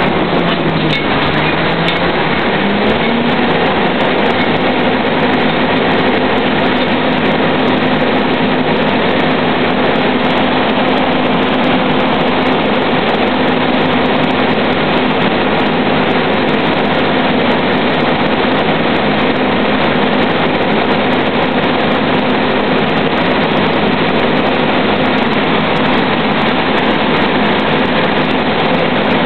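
A drilling rig's engines and floor machinery run loudly and steadily while pipe is tripped out of the hole. One engine tone dips and climbs back in the first few seconds, then holds level.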